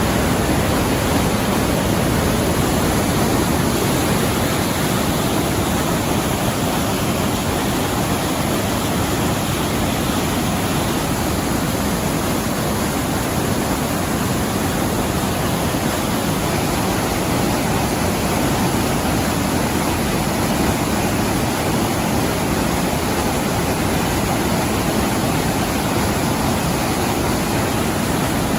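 Dawson Falls, a wide waterfall on the Murtle River, heard up close: a steady, loud rush of falling water.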